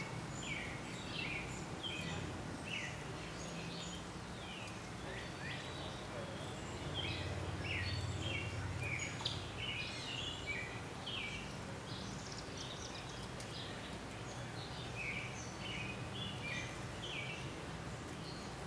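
Several birds chirping and calling in short, quick notes, scattered irregularly and overlapping, over a steady low background rumble.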